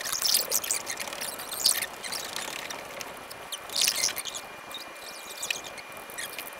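A pen scratching across paper in irregular strokes, driven by a hand-guided wooden pantograph drawing arm, with light rubbing and scraping. The scratching is densest in the first two seconds and again around four seconds in.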